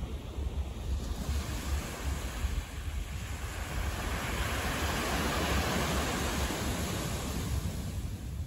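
Wind rumbling on the microphone under the rushing hiss of street traffic, which swells from about three seconds in as a vehicle goes by, peaks midway and fades near the end.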